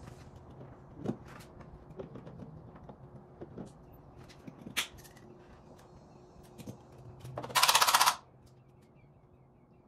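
Hand-tool work on a pickup's front end: scattered metallic clicks, clinks and knocks, then a loud burst of very rapid clicking lasting under a second near the end.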